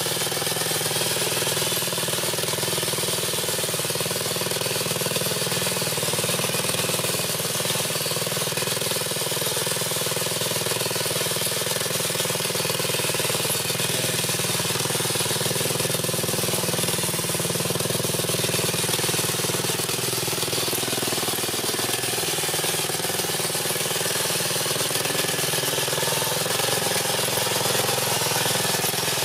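Small Harbor Freight Predator gas engine running steadily as it drives the steel walking machine's legs.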